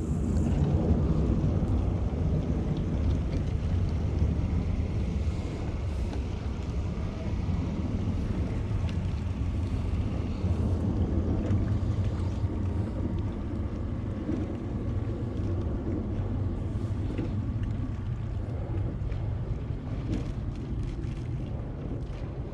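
Wind buffeting the camera microphone: a steady low rumble at the shoreline, with a faint steady hum partway through.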